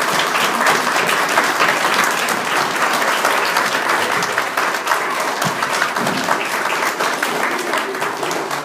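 Audience applauding: a dense, steady round of clapping.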